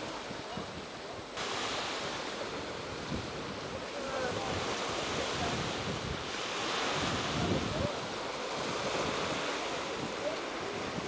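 Small waves washing on a sandy beach, with wind on the microphone. The sound steps up abruptly about a second in, becoming brighter and hissier.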